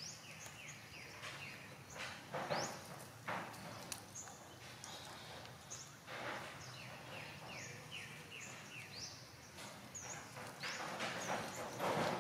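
Outdoor ambience full of quick, high chirping bird calls, many short notes sliding up or down in pitch, with a few brief rustling scuffs on leaf litter.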